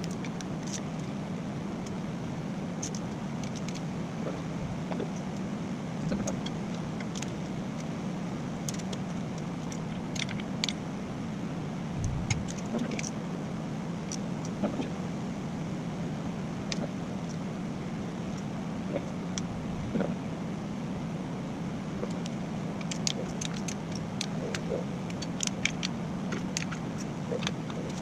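An engine running steadily at an even speed, with scattered light clicks and ticks over it.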